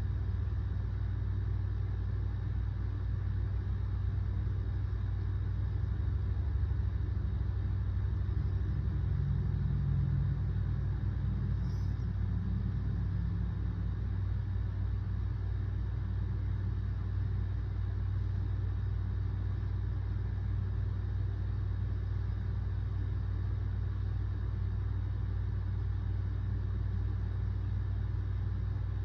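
A steady low rumbling hum that swells slightly for several seconds partway through.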